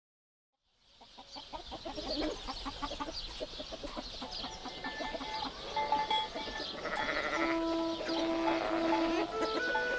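After about a second of silence, animal calls fade in with many short, high chirps. Sustained musical notes come in about seven and a half seconds in.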